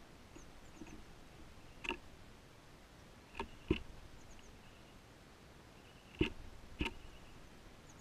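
Five sharp knocks close to the microphone, unevenly spaced, the loudest a pair about two thirds of the way through. Behind them, small birds give a few faint, short, high chirps.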